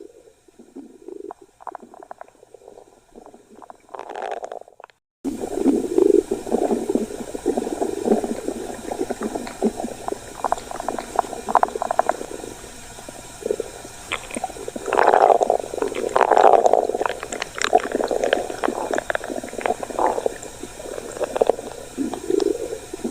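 Human stomach growling: irregular gurgles and rumbles. They are faint for the first few seconds, then louder over a steady hiss from about five seconds in, with the strongest rumbles about two thirds of the way through.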